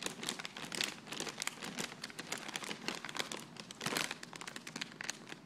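Plastic pretzel bag crinkling and crackling in irregular bursts as a cat paws and plays with it, louder about four seconds in.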